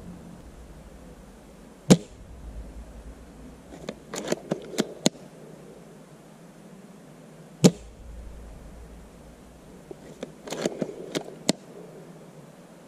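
Spring-powered bolt-action airsoft sniper rifle fired twice, each shot a single sharp crack, about six seconds apart. A couple of seconds after each shot comes a quick run of clicks as the bolt is worked to re-cock the spring and chamber the next BB.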